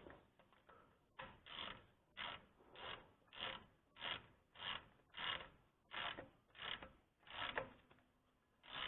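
Hand ratchet clicking in a steady series of back-and-forth strokes, about a dozen of them a little over half a second apart, running the refill plug back into the rear differential.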